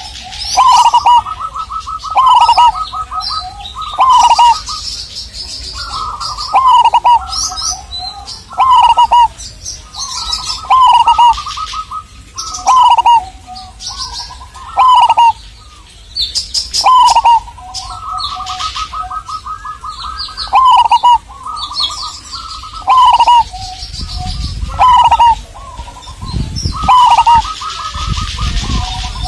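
Zebra dove (perkutut) singing over and over, a phrase about every two seconds: each phrase is a quick rolling run of notes followed by deep falling coos.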